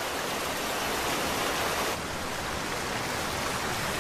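Steady rush of a river running high, an even hiss of water with no distinct splashes, dipping slightly about halfway through.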